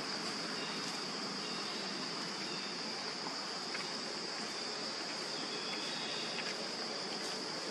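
A steady, high-pitched drone of insects that holds unchanged throughout.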